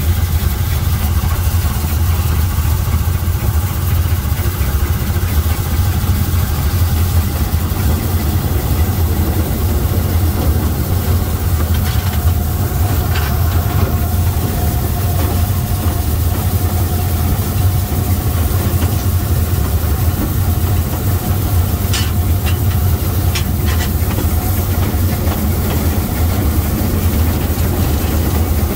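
Oil-fired Bagnall 0-4-0 saddle tank steam locomotive running along the line, heard from its open cab as a steady low rumble. A faint steady tone comes in midway and a few sharp clicks are heard about halfway through and again later.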